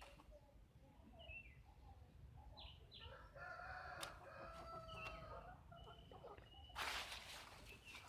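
A rooster crowing faintly in the background, one drawn-out crow lasting about three seconds from roughly three seconds in, among a few short high chirps. A brief rustle of handling comes near the end.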